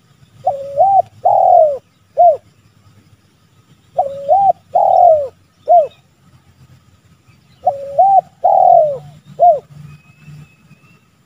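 Spotted dove cooing: three phrases about three and a half seconds apart, each a short rising note, then a longer, loudest drawn-out note falling away, then a short final note.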